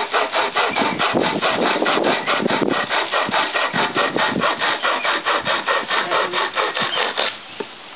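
Pocket chainsaw, a hand-pulled chain with cord handles, being drawn back and forth through a wooden branch in rapid, even rasping strokes, about five a second. The strokes stop abruptly about seven seconds in as the saw finishes cutting through.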